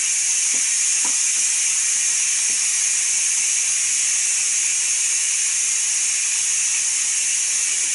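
Ninja Foodi pressure cooker venting steam through its pressure-release valve in a steady hiss after pressure cooking. The cooker is still under pressure, and the red float valve has not yet dropped.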